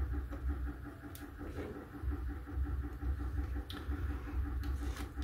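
Low steady electrical hum, with a few faint ticks from the soldered connector and its wires being handled.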